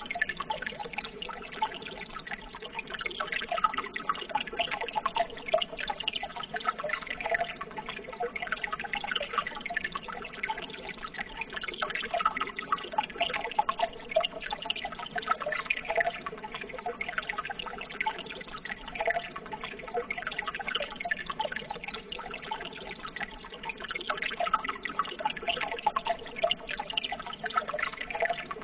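Running water flowing and trickling steadily, with many small irregular splashes and drips.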